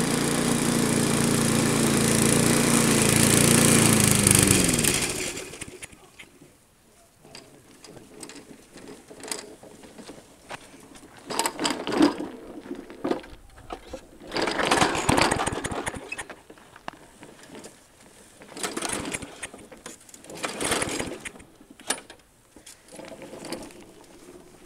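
Walk-behind rotary lawn mower engine running steadily, then shutting off about four and a half seconds in, its pitch falling as it winds down. After that there are only scattered short noises.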